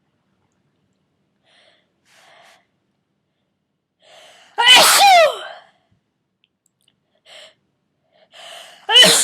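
A person with a cold sneezing twice in a sneezing fit. Each loud sneeze is voiced, falls in pitch, and comes after short inhaling breaths. One is about halfway through and the next is at the very end.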